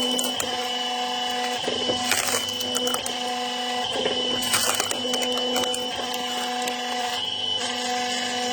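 Automatic firewood splitting machine running with a steady mechanical hum, its pitch dipping briefly each time it takes load. Sharp cracks and clatter of logs splitting and pieces falling come about two seconds in and again around four and a half seconds.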